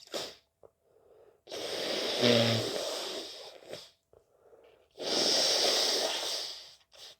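A person with a head cold blowing their congested nose hard, two long blows a couple of seconds each. The first has a brief pitched honk near its start.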